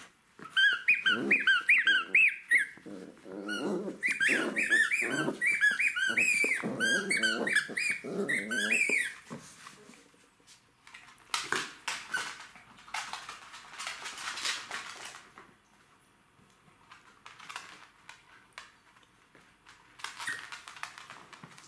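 A latex squeaky toy squeaking rapidly, over and over, as a Jack Russell terrier puppy chews it, with puppy growling mixed in. After about nine seconds this stops, and quieter scuffling and clicking follows as puppies play on a wooden floor.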